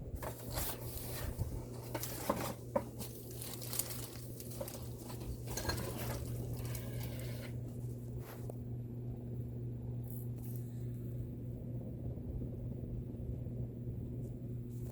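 Hampton Bay Clarkston II 44-inch ceiling fan running on high speed with a steady motor hum. Scattered light clicks and rustling over the first half.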